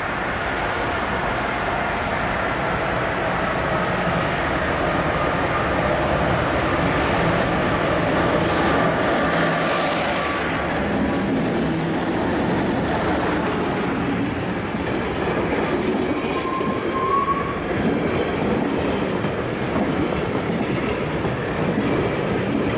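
MLW MX636 diesel-electric locomotive passing close at the head of a container freight train, its engine running loud, growing louder as it draws near in the first second. The container wagons then roll past with wheels clattering over the rail joints, and there is a brief wheel squeal about two-thirds of the way through.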